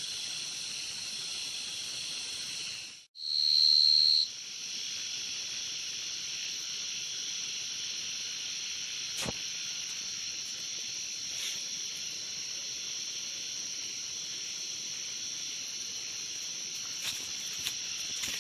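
A steady chorus of crickets calling after rain, a high even trill. About three seconds in the sound drops out for a moment, then one cricket's call comes through loud and steady for about a second before the chorus carries on.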